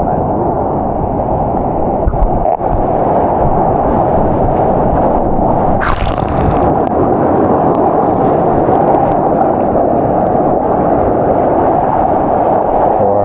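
Loud, muffled rush of water and wind noise on the camera in the surf, steady throughout, with a single brief click a little before the middle.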